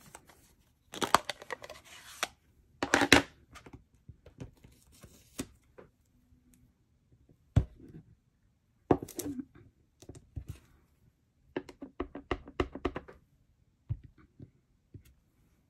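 Desk handling noise from rubber stamping. It starts with rustling and scraping as the cling stamp and clear acrylic block are handled. Later come a run of quick light taps as the stamp is inked on the ink pad, then a click as it is pressed onto the cardstock.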